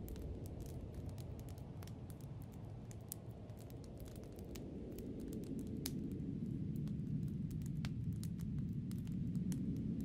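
Low, rushing snowstorm wind that eases a little about three seconds in and swells again toward the end, with scattered sharp crackles throughout.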